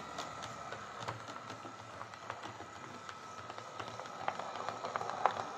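Heljan OO gauge Class 17 model diesel locomotive running along the track: a faint steady motor whine, with scattered clicks from the wheels on the rails, a couple of them louder near the end.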